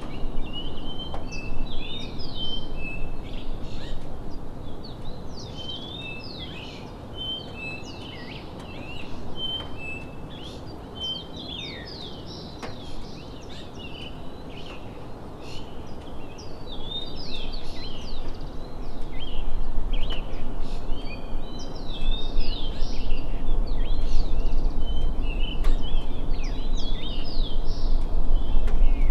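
Several birds chirping and calling in quick short notes and glides over a steady low rumble of outdoor noise. The rumble grows louder in the last third.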